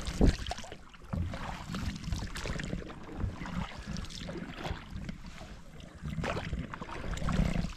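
Oars working an inflatable rowing boat, with irregular water splashes and knocks from the strokes, over a low rumble of wind on the microphone.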